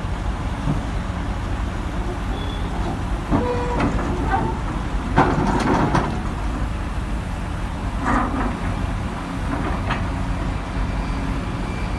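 Sumitomo LS2800DJ crawler excavator's diesel engine running steadily, with several loud metal clanks and a few short squeals.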